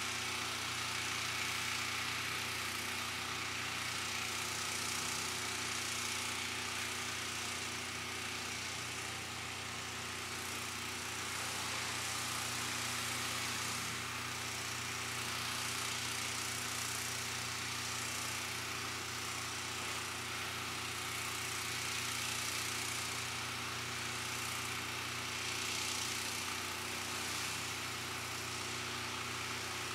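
Steady mechanical hum with several held low tones, under a soft hiss that swells and fades every few seconds.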